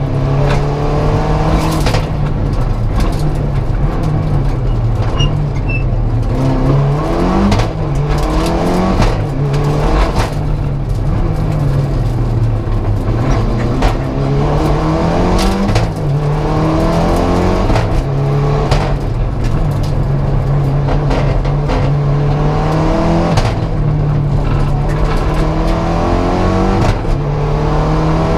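Mitsubishi Lancer Evo V's turbocharged four-cylinder engine heard inside the cockpit at full rally pace. It repeatedly revs up and drops back at each gear change and lift, with frequent sharp cracks and knocks over the engine.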